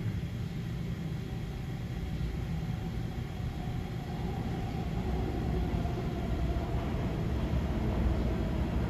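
Low, steady rumble of an IRT subway train (R142/R142A) in the tunnel, slowly growing a little louder, with a faint steady whine in the second half.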